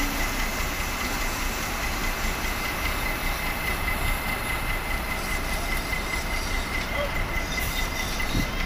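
Heavy diesel machinery, a truck crane's engine among it, running steadily during a girder lift, with a thin, constant high whine over a low rumble.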